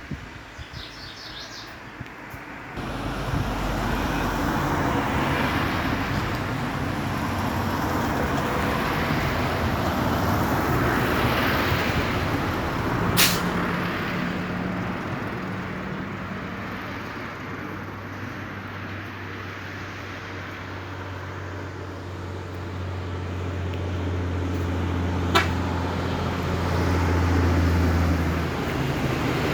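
Motor vehicle running with steady engine hum and road noise, which swell about three seconds in. The low hum grows stronger near the end, and there are two sharp clicks about twelve seconds apart.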